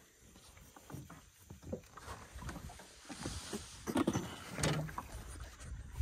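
Water splashing and knocking against a small fishing boat while a hooked fish is played near the side, with a few louder knocks about four seconds in.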